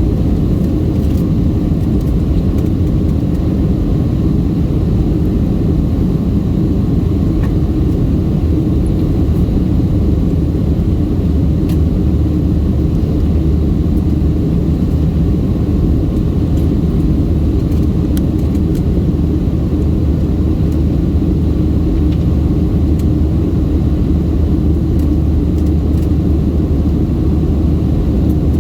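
Steady cabin roar of a Boeing 737-700 in its climb after takeoff: the CFM56-7B turbofans and the airflow over the fuselage, heard from inside the passenger cabin as a deep, even rumble.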